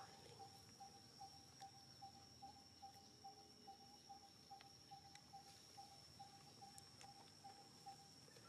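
Faint outdoor ambience: a steady high-pitched drone and a soft note repeated about four times a second, which stops shortly before the end.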